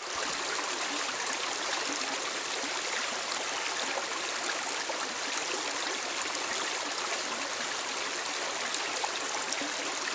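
Shallow rocky jungle stream running over stones, a steady close rushing and babbling of water.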